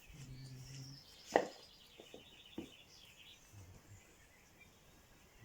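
Birds chirping in the background, with one sharp knock about a second in and a few lighter knocks after it. A low steady hum sounds for the first second.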